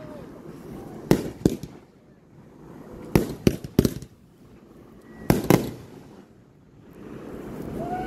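Aerial fireworks going off: sharp bangs in quick clusters, two about a second in, three around three seconds in, and two more past five seconds.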